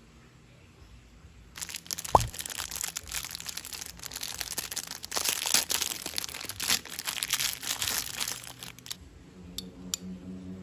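Clear plastic packaging bag crinkling and rustling as it is handled and an item is pulled out of it. It starts about one and a half seconds in and stops about a second and a half before the end, with one sharp snap just after it starts.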